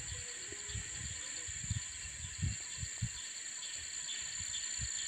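Steady high-pitched chorus of insects, with a scattering of soft low thuds throughout.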